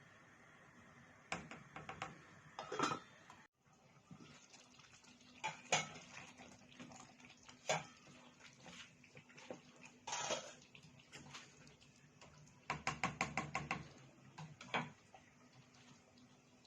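Metal utensils clinking and knocking against pots and dishes in a kitchen, in scattered single strikes, with a quick run of rapid clinks about three-quarters of the way through.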